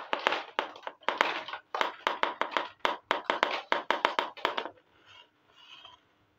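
Small plastic toy pot clicking and scraping as it is handled, turned and slid across a board: a quick, uneven run of clicks, about four or five a second, that stops near the end, followed by two faint rustles.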